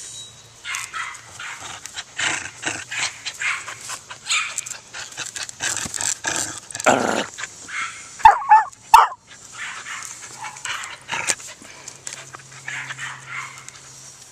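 A dog tugging on a stick, making a string of short, noisy breathy and growly sounds, with two loud, sharp barks close together about eight seconds in.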